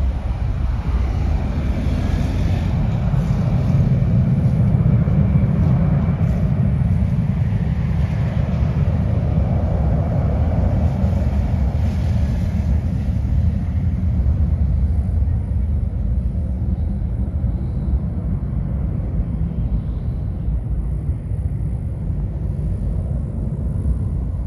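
Jet engine roar of an Airbus A319-115's CFM56 turbofans at takeoff thrust: a deep, steady rumble as the airliner lifts off and climbs away, its higher part dying out in the second half as it recedes.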